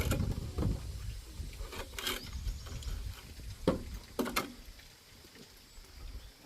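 A few scattered knocks and clatters of work, five or so sharp ones in the first four and a half seconds, over a faint low rumble.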